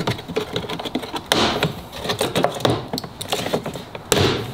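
Plastic interior trim panel in a Ford Bronco's cargo area being pulled off by hand: scattered clicks and scrapes as its clips pop free, with louder snaps about a second in and near the end.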